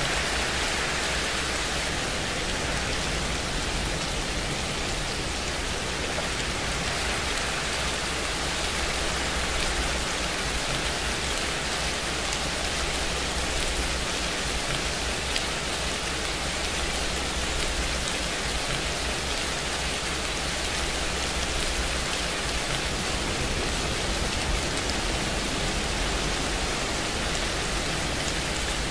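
Steady rain sound, an even hiss that doesn't change.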